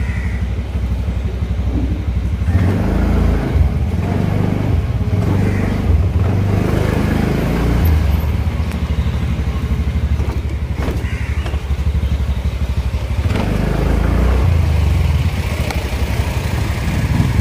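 Scooter engine running as it is ridden away through an alley and into traffic, its level shifting with the throttle, with other road traffic around it.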